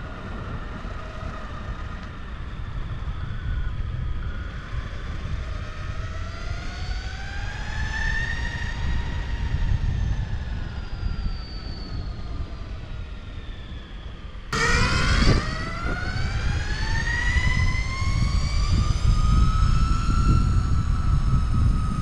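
Low rumble of skateboard wheels rolling on pavement, with a siren wailing slowly up and down in pitch. About two-thirds of the way in, the sound jumps suddenly louder and brighter.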